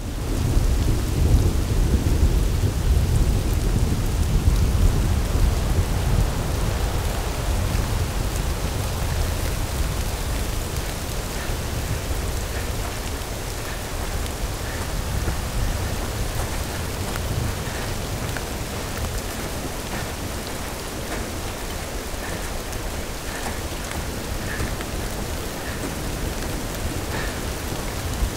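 Steady rain with a deep low rumble, strongest in the first several seconds, then evening out; faint short high notes come through from about ten seconds in.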